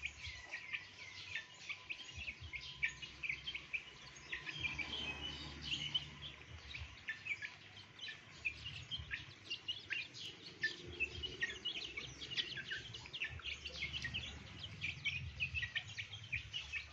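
A flock of young chickens peeping continuously while feeding: many short, high, quickly falling chirps overlapping one another.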